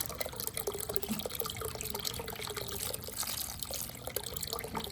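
Water running and trickling through a toy water marble run, with many small drips and ticks over a steady faint hum.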